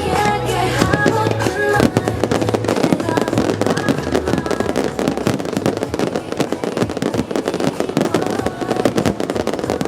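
Fireworks bursting and crackling in rapid, dense succession over music with held notes and a bass line; the bangs thicken after about two seconds.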